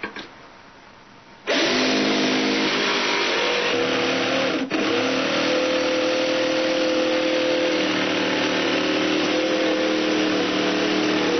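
Cordless drill motor starting suddenly about a second and a half in and running steadily as it bores into an MDF board. Its whine rises slightly in pitch soon after the start and dips briefly once.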